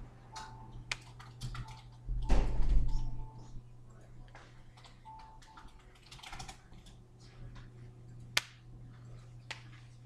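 Hands tapping, clapping and brushing against each other and against clothing while signing, a scatter of soft taps and clicks over a low steady hum. A louder, muffled bump comes about two seconds in and a single sharp clap about eight seconds in.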